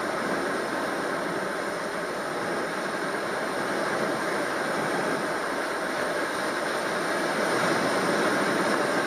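Steady rushing noise of wind and surf at an ocean beach.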